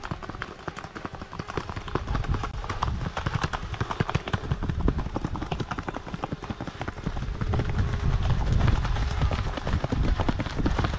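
Paso Fino mare's hooves on a dirt track in a rapid, even four-beat gait, a quick run of clip-clops. A low rumble builds in the second half.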